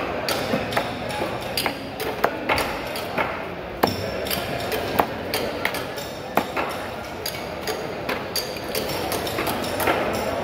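Cleaver chopping barracuda on a wooden chopping block: sharp knocks at irregular intervals, with voices in the background.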